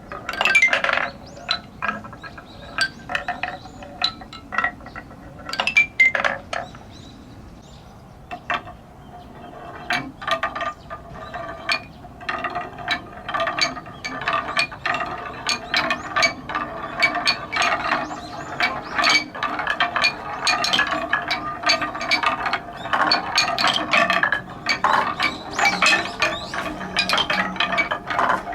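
Balls rolling and clattering down a wooden stair-step marble run: a rapid, irregular string of wooden knocks and clacks with a hollow ringing tone. The clatter thins out briefly about a third of the way in, then grows busier.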